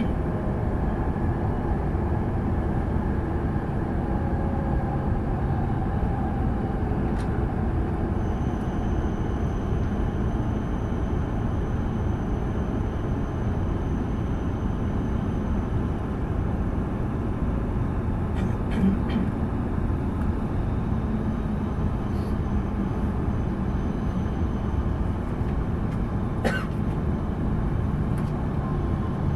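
Steady rumble and rushing noise of a Tohoku Shinkansen train in motion, heard from inside the passenger car, with a few faint clicks.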